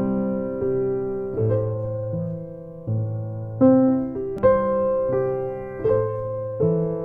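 Background music: slow piano chords, each struck and held for about a second before the next.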